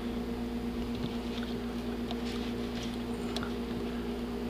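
Steady low hum, with a few faint small plastic clicks and rustles as a fuse tap and its wires are worked into a car's interior fuse box.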